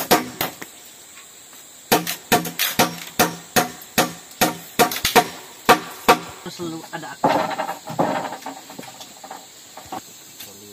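Rapid, regular blows of a tool on wood, about three a second, like hammering or chopping timber for a shelter frame. A softer, rough scraping or rustling sound follows about seven seconds in.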